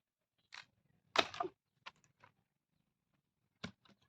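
A few brief, irregularly spaced knocks and clatters, the loudest just over a second in and a quick pair near the end.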